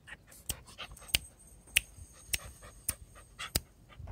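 A puppy panting with its tongue out, in short quick puffs about every half second.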